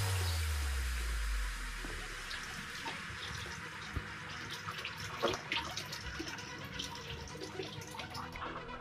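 Aquarium water trickling and bubbling, with small scattered clicks and ticks. A deep low boom fades away over the first second or so.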